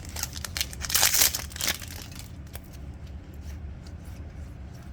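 Foil trading-card pack wrapper being opened: a loud crinkling, tearing rustle about a second in, with lighter crinkles and rustles around it.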